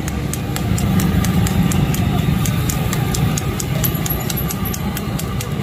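Chicken masala bubbling and spluttering in a large flat tawa, with a scatter of sharp little pops and ticks over a steady low rumble.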